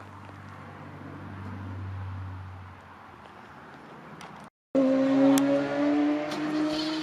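A BMW E24 coupé's engine: a low steady hum that swells and fades, then after an abrupt cut a loud run under acceleration, its note rising steadily.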